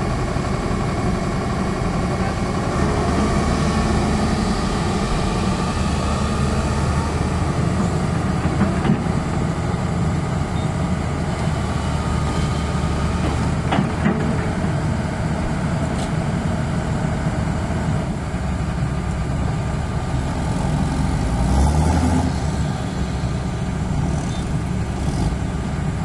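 Hyundai Smart 210 crawler excavator's diesel engine running steadily. It surges louder for a moment a little after twenty seconds in, with a couple of sharp clicks along the way.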